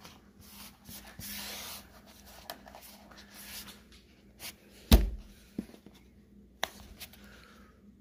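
Hands pressing and rubbing a rubber door weather strip into a car's door frame, with a rubbing hiss early on, one sharp thump about five seconds in, and a few lighter taps after it.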